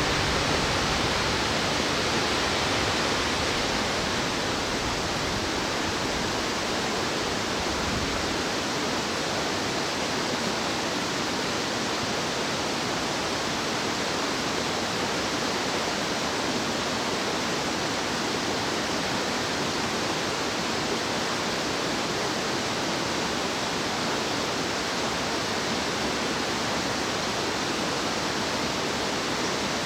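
Rushing water of a mountain stream, a steady, even rush with no breaks.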